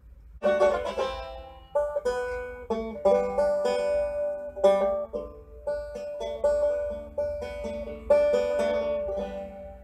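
Banjo played solo, its strings picked in a run of sharp plucked notes that ring and die away, starting about half a second in and fading near the end.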